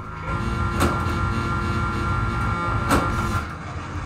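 Stern Lightning pinball machine in play during multi-ball: an electronic game tone held for about three seconds over a steady low rumble from the playfield, with two sharp clacks about two seconds apart.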